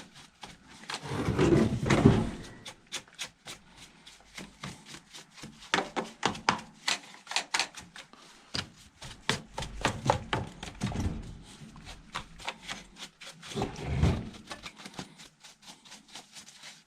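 Irregular clicks, knocks and scrapes as the chainsaw is handled and the caked sawdust and bar-oil gunk is knocked off, with a longer scraping rub about a second in and again near the end.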